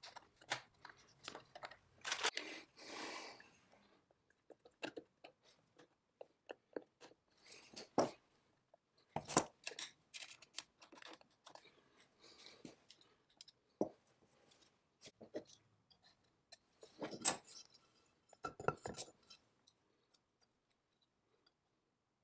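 Hands working small metal parts and wiring at a chainsaw's ignition points housing: scattered light clicks, taps and rustles, with a few sharper metallic knocks.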